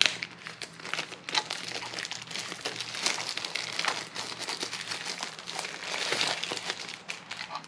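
Thin plastic packaging bag crinkling and rustling in irregular crackles as hands unwrap a drone remote controller from it.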